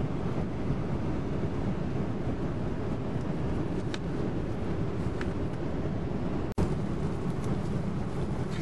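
Steady low rushing noise inside an airliner's passenger cabin, the engine and air noise heard from a seat, with a few faint ticks. It cuts out for an instant about two-thirds of the way through and resumes unchanged.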